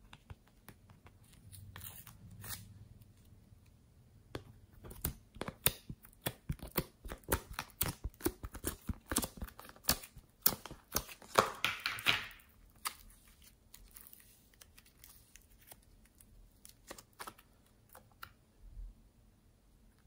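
Fingers prying soft clay out of the cups of a plastic palette tray: a dense run of clicks and crackles from about five to twelve seconds in, ending in a short tearing rustle, with a few scattered softer clicks before and after.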